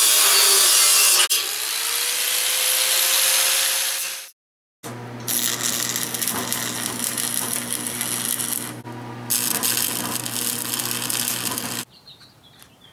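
Angle grinder with a cut-off wheel cutting steel square tubing for about four seconds, loudest in the first second. After a brief break, a stick welder's arc crackles over a steady low hum for about seven seconds as the cut end is capped.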